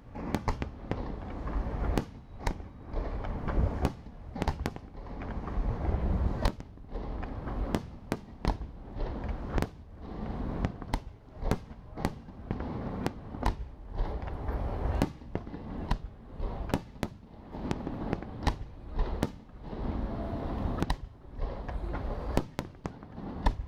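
Aerial firework shells bursting in a dense barrage: dozens of sharp bangs at irregular intervals, often several a second, over a continuous low rumble.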